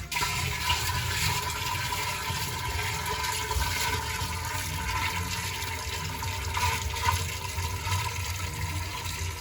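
Water pouring steadily from a bucket into a sewage ejector pump system, filling it to test newly glued pipe fittings for leaks.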